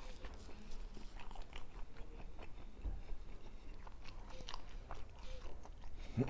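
Close-up chewing of a chilaquiles torta, tortilla chips in salsa inside a bolillo roll, with scattered small crunches and mouth clicks at an irregular pace.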